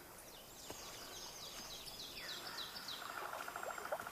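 Wild birds singing: a string of short, high chirps that slide down in pitch, with a fast, even trill joining about three seconds in.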